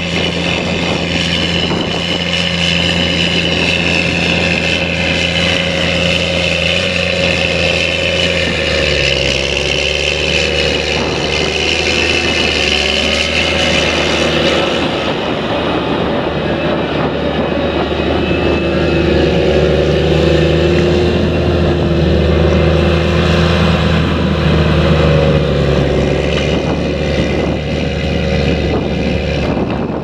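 Challenger 765B tracked tractor's diesel engine running steadily under load while pulling a reversible plough, its note dropping slightly about nine seconds in.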